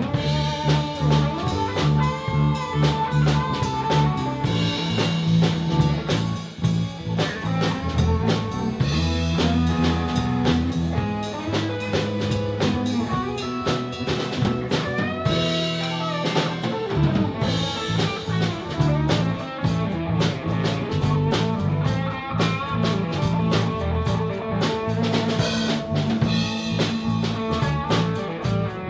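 Live blues band playing an instrumental passage: guitar notes bending in pitch over a steady drum kit beat.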